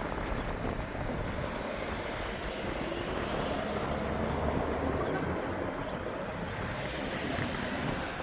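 Steady rumble of a passing vehicle, with a brief faint high squeal about four seconds in.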